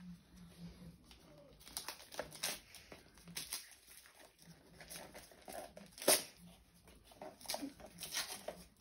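Gift wrapping and packaging rustling and crinkling in the hands as a present is unwrapped, in irregular crackles, with one sharper, louder crackle about six seconds in.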